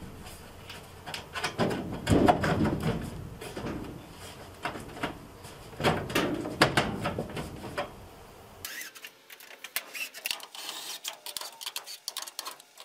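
Plastic whole-house humidifier housing and its sheet-metal duct collar knocking and scraping against the furnace's metal plenum as it is pushed into place. After a cut about two-thirds of the way in, a quicker run of light clicks.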